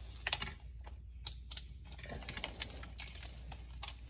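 About a dozen light, irregular clicks and taps from hand work on parts under a car.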